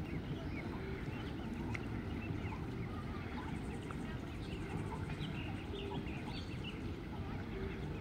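Mallard ducklings peeping, many short high calls scattered throughout, over a steady low rumble of background noise.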